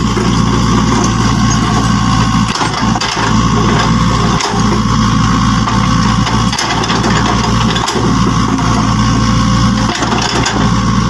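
Heavy engine running steadily at idle, a low, even rumble with a few brief dips. The toys on screen make no such sound, so it is an engine sound laid over the toy play.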